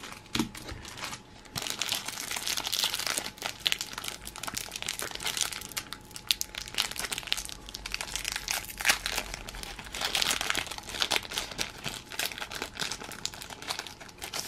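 Foil booster-pack wrapper of trading cards crinkling and crackling in the hands as it is torn open at the top. A dense run of crackles sets in about a second and a half in.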